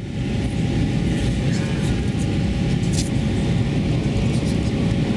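Steady cabin noise inside an Airbus A320 airliner on descent: a dense low rumble of the engines and airflow, with a few faint steady tones running through it.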